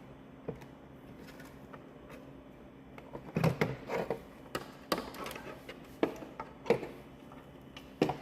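Hard plastic instrument-cluster parts being handled and fitted together: a quiet stretch, then from about three seconds in a run of irregular light clicks and knocks, with a sharper knock near the end.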